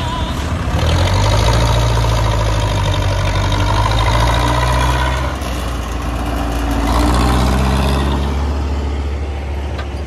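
Zetor 6045 tractor's diesel engine running steadily, its loudness swelling about a second in and again around seven seconds.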